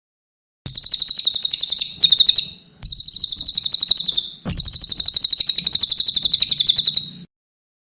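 Cililin bird singing a very fast, high, rattling trill in four bouts of one to three seconds, with short breaks between them.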